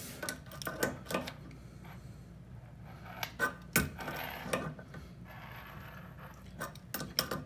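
Scattered light metal clicks and taps of a wrench on the braided water line's nut as it is snugged onto the toilet fill valve's plastic fitting, with a soft rustle in the middle.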